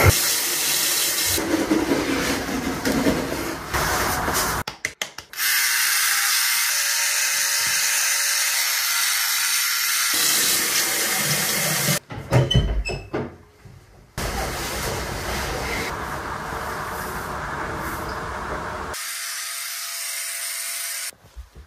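Electric beard trimmer buzzing as it cuts neck and beard hair, in several stretches that start and stop abruptly.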